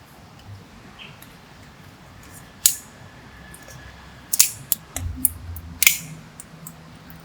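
Several sharp clicks and taps of small hard parts being handled: one about a third of the way in, then a quick cluster near the middle to late part.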